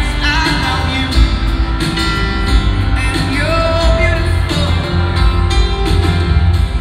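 A live band performing a slow pop-rock song with a lead singer, acoustic guitars, grand piano and drums, recorded from the seats of a large arena.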